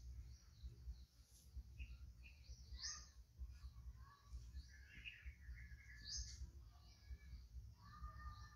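Faint bird calls: a short rising chirp repeated about every three seconds, with softer chirps in between, over a low rumble.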